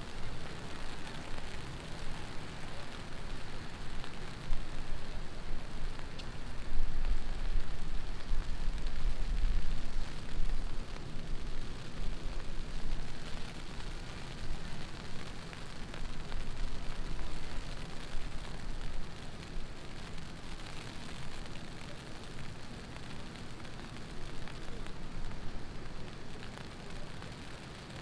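Heavy rain falling steadily, an even hiss. A deep low rumble swells a few seconds in, peaks, and fades away before the middle.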